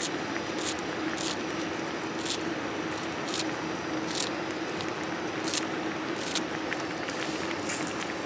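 Steady rain falling, with irregular sharp ticks about every half second to second and a faint steady hum underneath.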